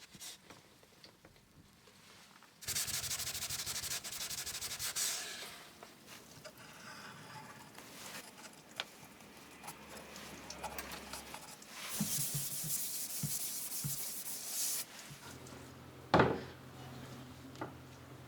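Sanding on plywood in two spells of scraping strokes, with scattered light clicks between them and one sharp knock near the end.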